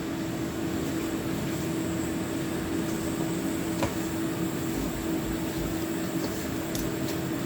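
Steady mechanical hum from a kitchen appliance, carrying one constant low tone, with a few faint clicks of hand work.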